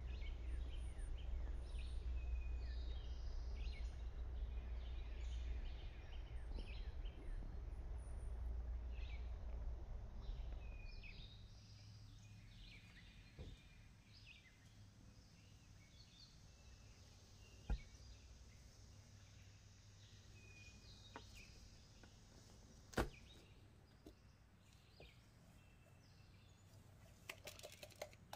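Birds chirping over a low wind rumble, which drops away about ten seconds in while the chirps carry on more faintly. Then a few sharp knocks on a wooden cutting board and, near the end, a quick run of small crackling clicks as a red bell pepper's stem and seed core are pulled out.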